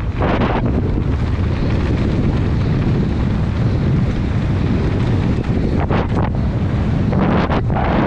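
Wind rushing over a helmet-mounted camera's microphone as a downhill mountain bike descends at speed, with a few sharp knocks around six seconds in and again near the end.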